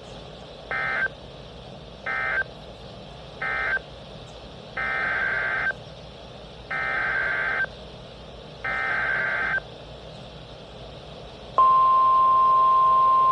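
NOAA Weather Radio Emergency Alert System SAME data bursts: three short bursts (the end-of-message code), then three longer, roughly one-second header bursts for the next alert. About eleven and a half seconds in, the steady single-pitch weather radio warning alarm tone starts loud.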